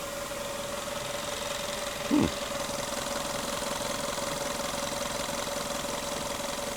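Steady mechanical running noise with a constant whine held on one pitch. About two seconds in comes one brief, louder sound that falls quickly in pitch.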